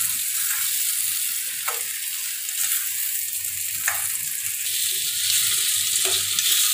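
Chopped onions, tomatoes and green chillies sizzling in hot oil in a stainless steel pan, stirred with a steel spatula that scrapes against the pan a few times.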